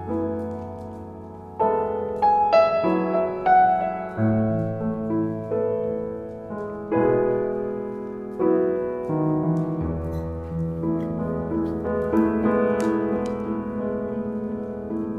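Background solo piano music, notes and chords struck and left to ring and fade.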